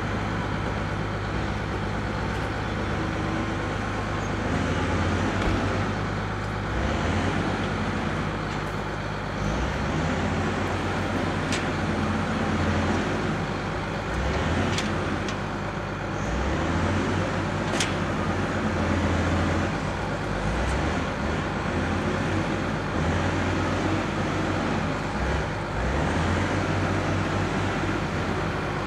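Diesel engine of an old loader running, swelling and easing irregularly as the machine works, with a few sharp short clicks now and then.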